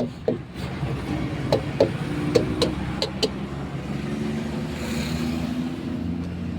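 Vehicle engine running steadily on a highway, with a handful of sharp clicks in the first half and a brief rushing swell of a passing vehicle about five seconds in.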